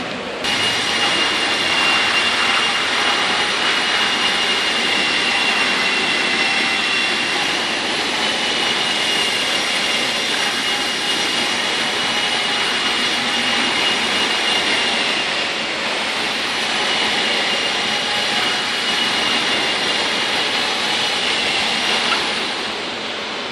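A steady, high-pitched machine whine from an electric motor running at constant speed, starting abruptly about half a second in and fading out near the end.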